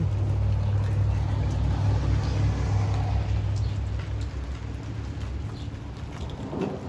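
Rolling thunder after a lightning strike, a deep steady rumble that eases off over the last few seconds, with rain falling.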